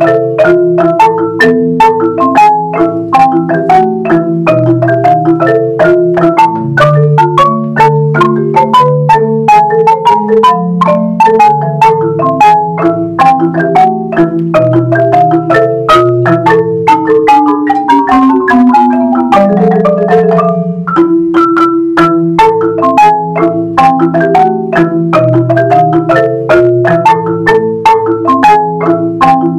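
A Yamaha marimba with tube resonators played by three players at once in a salsa-style mallet piece: a steady stream of struck notes with a bass line underneath, melody and chords above. About 17 seconds in, a run of notes falls in pitch, then the rhythm picks up again.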